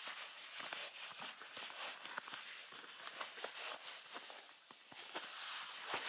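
Laces being loosened and pulled through the metal eyelets and speed hooks of a Danner insulated leather boot: soft rasping of the cord with many small scattered clicks and ticks.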